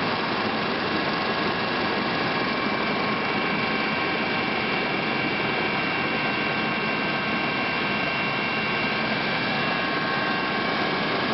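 Steady aircraft engine noise heard from inside the cabin: a constant drone with several high, steady whining tones over it, unchanging throughout.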